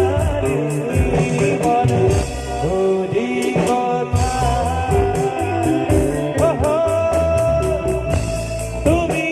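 Bengali song music: a melody line gliding between held notes over a pulsing bass and steady percussion ticks.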